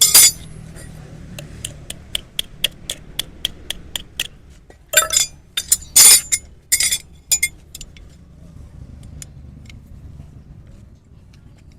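Metal hoof-trimming tools clinking. One sharp knock, then a quick run of light clicks about four a second for around three seconds, then a few louder clinks and scrapes midway through.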